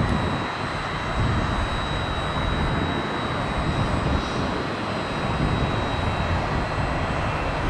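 Business jet's turbofan engines running at taxi power as it rolls past: a steady high whine over a low rumble.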